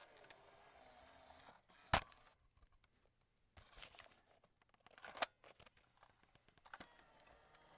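Cassette tape deck's eject mechanism: two sharp mechanical clacks about three seconds apart, with quieter clicks and a short rustle between them.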